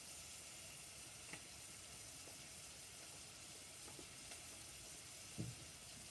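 Faint, steady sizzling of food frying in butter in a pot on a gas burner. A few light clicks and one louder knock near the end come from spice jars and a kitchen cabinet door being handled.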